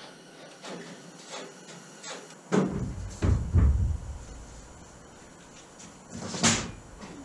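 Thumps and knocks of a large thin plywood panel being handled and bumped against a wooden bench and frame: a run of heavy, dull bumps a couple of seconds in, then a single sharper knock near the end.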